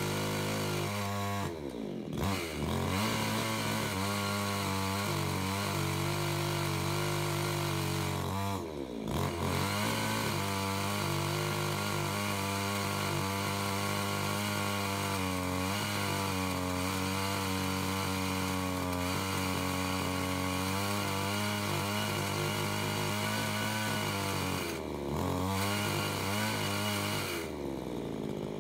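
Zomax ZM5603 two-stroke chainsaw, mounted on a rail chainsaw mill, running at high revs while ripping a plank lengthwise through a log. Its revs dip and climb back three times, about two, nine and twenty-five seconds in.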